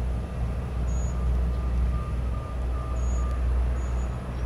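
Jet airliner engines at the airport, a steady low rumble with a few faint short high chirps over it.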